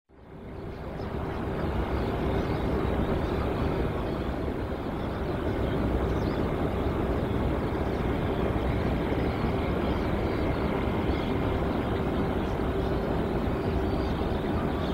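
Jet airliner's engines at takeoff power: steady jet noise with a held mid-pitched tone, fading in from silence over the first second or two.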